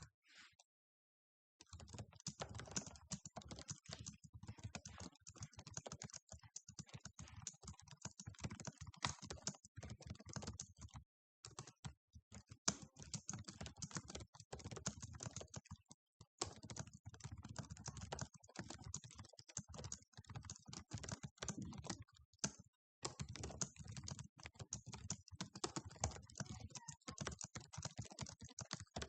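Fast typing on a computer keyboard, a dense run of key clicks at about 100 words per minute, starting about a second and a half in and broken by a few brief pauses.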